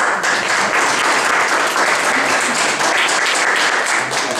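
Audience applauding, starting all at once and tapering off near the end.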